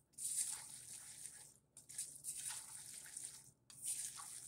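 Spatula stirring boiled macaroni with butter and cheese powder in a saucepan: wet, squishy scraping in repeated strokes with short breaks between them.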